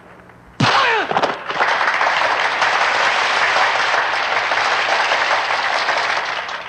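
A sudden impact with a falling tone about half a second in, then a large crowd cheering and clapping loudly, easing off near the end.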